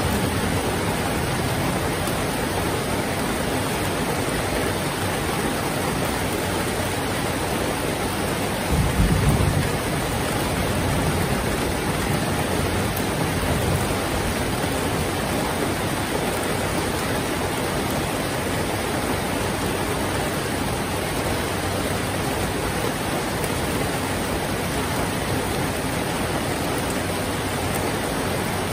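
Heavy rain falling steadily, an even hiss, with a brief low rumble about nine seconds in.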